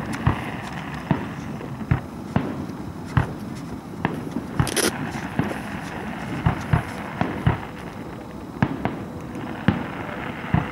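Aerial firework shells bursting in a string of sharp bangs, irregularly spaced at one or two a second.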